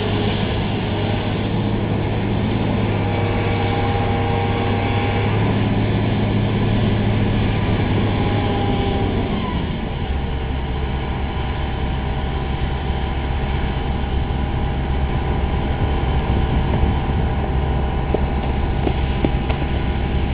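Hitachi hydraulic excavator's diesel engine running, with higher whines over it in the first half as the upper structure swings. About halfway through, the engine note drops lower and settles into a steady idle.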